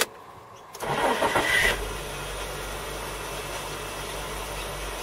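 2002 Mitsubishi Lancer engine cranked by its new starter motor, catching about a second in and then running at a steady idle. The new starter fails to disengage and keeps spinning on its overrun clutch while the engine runs.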